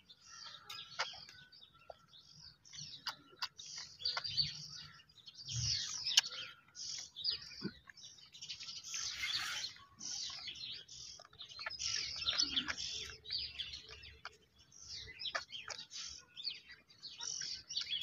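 Small birds chirping throughout: many short, high chirps overlapping one another.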